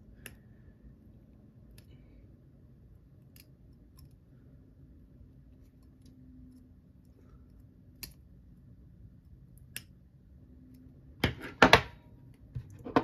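Needle-nose pliers working a small steel coil spring to bend it back into shape: sparse faint metallic ticks, then a quick cluster of louder metal clicks and clatter near the end.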